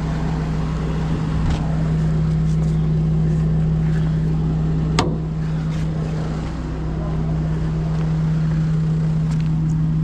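Diesel engine of a Hino rollback tow truck running steadily at idle, a constant low hum. One sharp click about halfway through.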